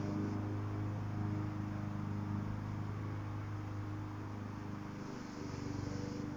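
A steady low mechanical hum runs throughout. Near the end comes a short hiss of an aerosol can being sprayed into a brush fire, lighting a puff of flame.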